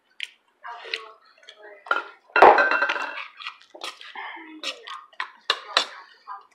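Spoons clinking and scraping against ceramic and glass bowls at a meal table, a run of sharp clinks with one louder clatter of dishes about two and a half seconds in.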